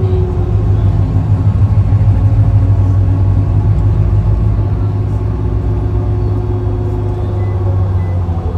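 Steady engine and road noise from inside a moving vehicle, mostly a low hum. Faint, short, high-pitched beeps start repeating about twice a second near the end.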